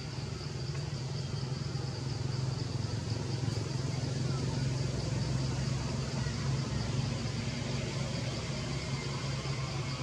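Steady outdoor background with a low engine-like hum and a fast-pulsing high buzz over it.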